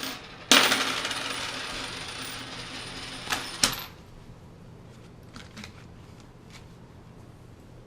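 Vending-machine coins rattling and clinking in a continuous rush for about three seconds, starting about half a second in, followed by a few scattered clinks.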